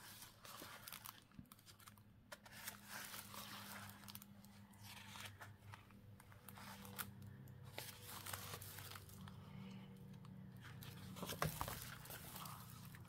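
Faint rustling and crinkling of paper sticker sheets being handled and flipped over, with scattered soft crackles and a louder rustle near the end.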